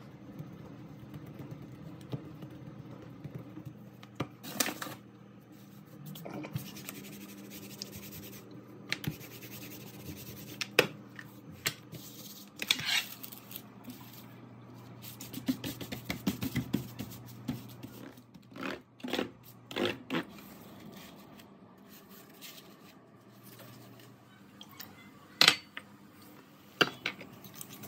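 Kitchen handling sounds: scattered scrapes, rustles and clicks as dough is smoothed onto baking paper on a metal tray and dishes are moved. There are a few sharper knocks, the loudest near the end as a plate meets a steel pot and sugar is tipped in, over a faint steady low hum.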